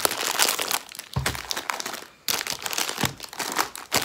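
Plastic snack wrappers and a gift bag crinkling and rustling as they are handled, in irregular bursts. There is a soft knock about a second in and a short pause near the middle.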